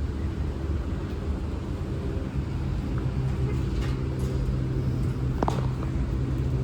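Motor vehicle running, a steady low engine and road rumble, with a brief squeak about five seconds in.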